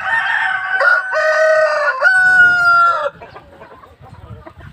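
Rooster crowing: one long call in several held notes that cuts off about three seconds in, followed by quieter clucking.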